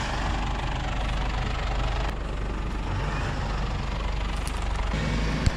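Ford Ranger's engine idling steadily while a bogged Ranger is winched out of creek mud, with a single sharp knock near the end.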